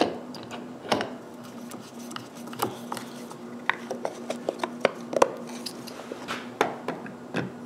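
Scattered light clicks, taps and knocks of small hard parts being handled and fitted by hand (a printed plastic pulley and belt, a plexiglas cover, a plywood box) during assembly, over a faint steady hum.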